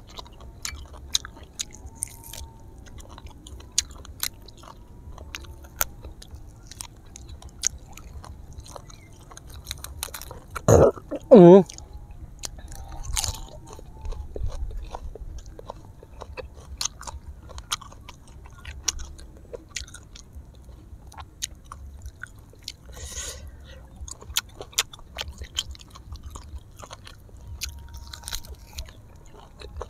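A person chewing and biting grilled duck, with many small crunches and smacking clicks. About eleven seconds in, two short, loud vocal sounds.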